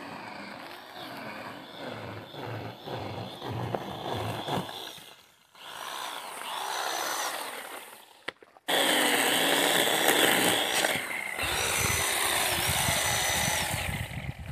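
Battery-powered DeWalt 16-inch chainsaw running and cutting into tree stumps at ground level. Its motor whine dips in pitch as the chain bites and recovers between cuts. It comes in several stretches that start and stop abruptly, loudest in the second half.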